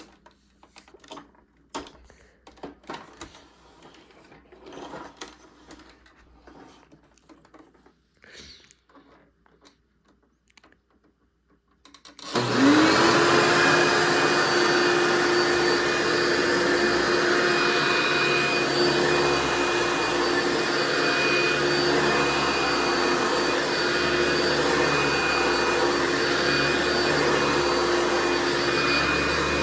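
Light clicks and handling of a Hoover Runabout Ultra vacuum cleaner, then about twelve seconds in its motor is switched on, spins up quickly and runs steadily with a constant whine.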